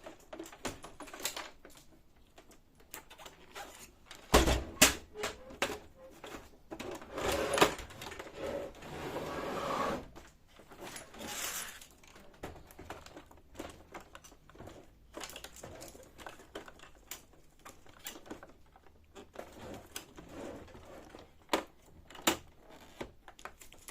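Plastic clicks, knocks and rubbing from hands working the scanner assembly and its release hooks on a Canon laser multifunction printer. A few louder knocks come about a fifth of the way in, and a longer scraping stretch follows around the middle.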